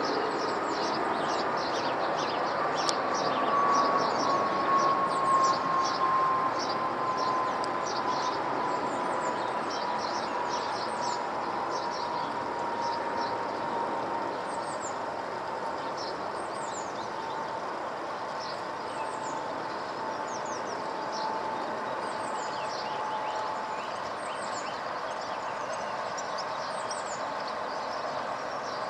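Boeing 787-8 Dreamliner's Rolls-Royce Trent 1000 engines passing over on approach to land: a steady jet rush with a whistling tone that slowly falls in pitch, loudest a few seconds in and then fading. Small birds chirp repeatedly over it.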